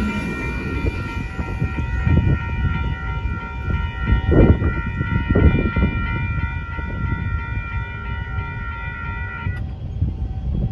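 Railroad grade-crossing warning bell ringing steadily, then cutting off suddenly near the end as the crossing gates begin to rise once the train has cleared. A low rumble with a few louder thumps underneath.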